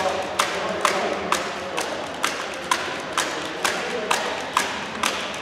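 Sharp knocks repeating steadily about twice a second, ringing in a large hall.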